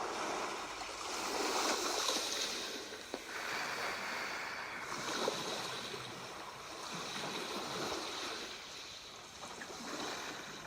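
Sea waves washing onto a shore, the surf swelling and fading every two to three seconds.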